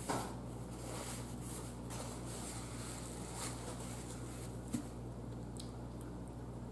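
Soft chewing and wet mouth sounds from eating, with a few faint clicks, over a steady low electrical hum.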